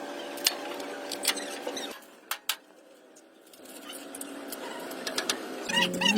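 Scattered light clicks and knocks over a faint steady hum. The hum drops away about two seconds in, two sharp clicks follow, and the noise builds back up near the end.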